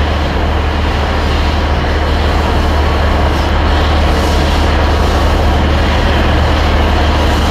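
Diesel multiple unit engine idling at the platform: a steady, loud low drone with an even rumble over it.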